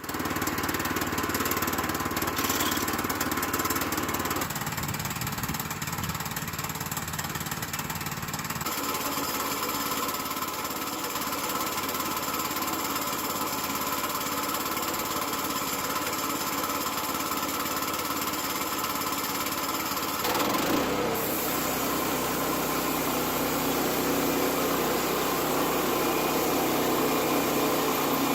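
Gasoline engine of a Woodland Mills portable bandsaw mill running steadily, its sound shifting abruptly a few times.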